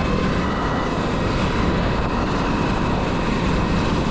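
Wind rushing over the microphone and knobby tyres rumbling on a dirt trail as a mountain bike descends at speed: a loud, steady noise.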